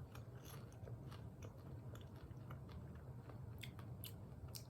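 A person chewing popcorn: faint, scattered crunches.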